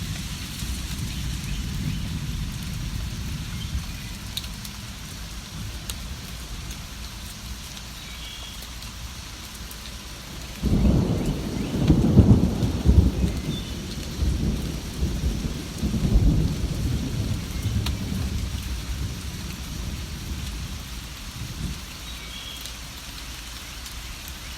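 Steady rain falling, with a loud rolling rumble of thunder starting about ten seconds in that swells and dies away over several seconds. A few faint bird chirps come through the rain now and then.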